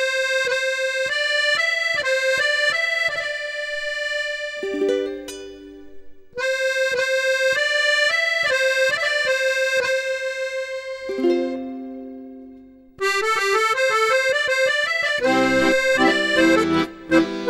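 Background music: a sustained melody line played in three phrases over a light, evenly ticking plucked rhythm. The first two phrases fade out about 5 and 12 seconds in, and the third comes in fuller, with lower notes added.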